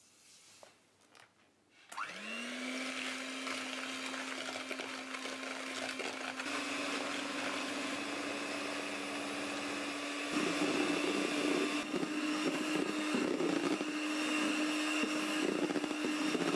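Electric hand mixer switching on about two seconds in, its motor rising quickly to a steady whine as the beaters whip eggs and sugar in a glass bowl towards the pale, thick stage. The pitch steps up partway through, and from about ten seconds in it runs louder and rougher as the batter thickens.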